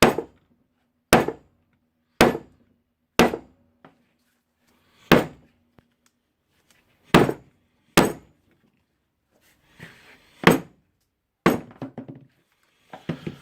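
Repeated sharp knocks, about ten, spaced roughly a second or two apart, each with a short ring: the Bosch GBH 2 rotary hammer's motor housing being struck to knock the field winding loose.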